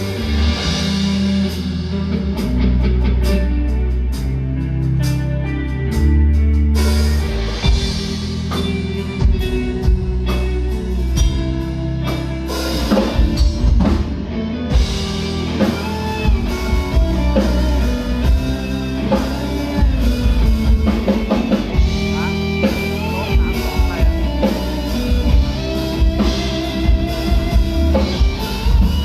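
Live band playing an instrumental break between sung verses: drum kit keeping a steady beat under bass and a melody line.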